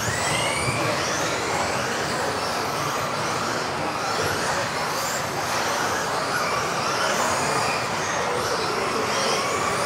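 A pack of electric modified-class 1:10 RC off-road buggies racing on an indoor track. Several high motor whines overlap, rising and falling as the cars speed up and brake, over a steady rush of tyres on the track.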